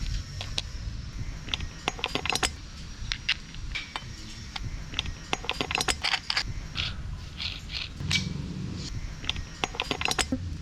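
Metal hand tools and hardware clinking and rattling in a rapid, irregular series of sharp clicks, as nuts, washers and springs are handled and fitted.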